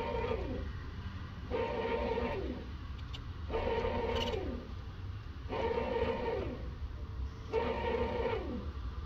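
Bread machine's kneading motor turning the paddle through banana bread batter in short runs about every two seconds, each run ending in a falling whine as the motor stops: the pulsing start of the knead cycle, working in the dry flour.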